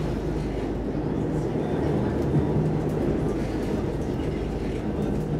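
Stockholm Metro C14 train running at speed, heard from inside the car: a steady low rumble of wheels on rails, with a low hum that fades and returns.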